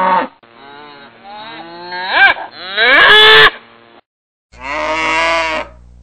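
Cow mooing in several long calls. The loudest call rises in pitch about two to three seconds in.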